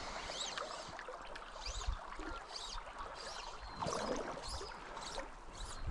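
Shallow river current rippling and gurgling close by, a steady wash of water, with short high chirps repeating over it and a brief louder swirl of water about four seconds in.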